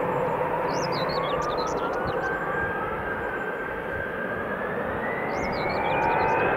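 Jet airliner engines spooling up for takeoff: a whine climbing steadily in pitch over a constant rush of engine noise. Small birds chirp in two short bursts in the background.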